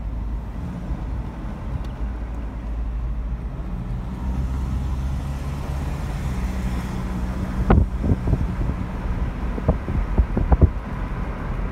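A moving car's engine and road noise heard from inside the car: a steady low rumble, with several sharp knocks in the second half, the loudest about two-thirds of the way in.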